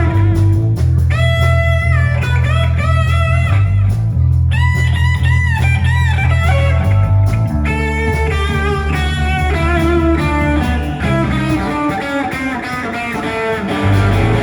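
Instrumental break in a rock-style song: a lead guitar plays melodic phrases with bent, wavering notes over a steady bass line.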